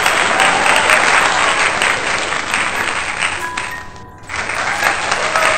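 Computer embroidery machine stitching at speed: a dense, rapid clatter of needle strokes. It drops away briefly about four seconds in, then starts again.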